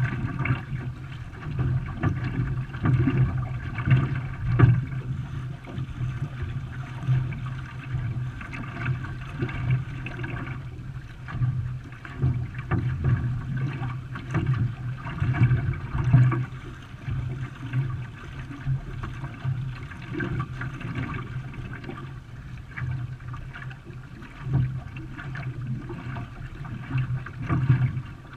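Water splashing and rushing around a canoe under way, with uneven louder swells of splashing.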